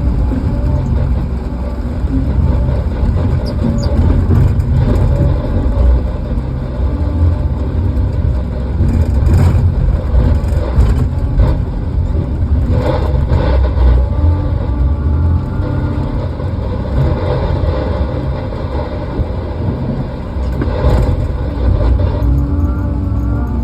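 Diesel engine of heavy logging equipment running steadily with a deep low rumble, with a few short knocks and brief rises in engine pitch.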